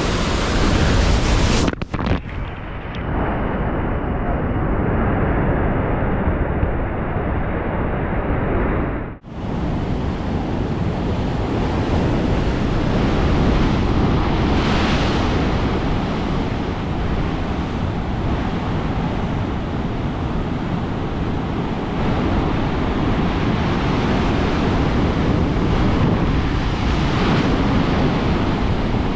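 Heavy king-tide surf crashing and churning against a rock seawall, with wind rumbling on the microphone. The rush breaks off for an instant about two seconds in and again about nine seconds in, where the recording jumps.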